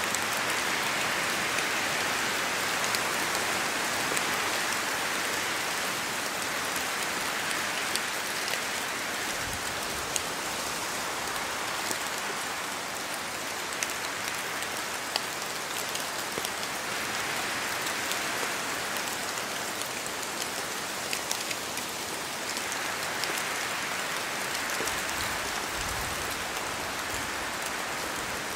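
Steady rain falling in a forest, with many individual drops pattering and ticking on leaves. The hiss swells and eases slowly, with a couple of brief low gusts of wind.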